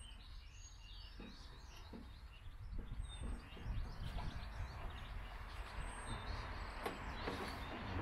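Birds chirping, with a thin high note recurring about every three seconds, over faint clicks and rustles of a plastic van door handle and its release cable being handled.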